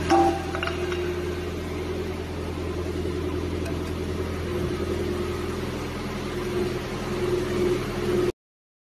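A 4-axis CNC wood lathe running with a steady low machine hum, with a few short clicks in the first second. The sound cuts off suddenly near the end.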